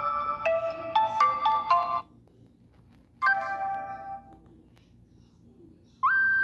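Nokia N97 Mini ringtones played on a Nokia 130 mobile phone's small speaker. A short stepped melody of clear tones ends about two seconds in. A brief ringing phrase follows a second later, and a new tone starts with a quick upward slide near the end, as the tones are cycled through.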